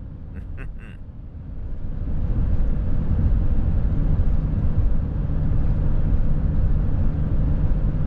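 Steady low rumble of a van driving at highway speed, heard from inside the cab: engine and tyre noise with a faint steady hum. It grows louder about two seconds in, then holds.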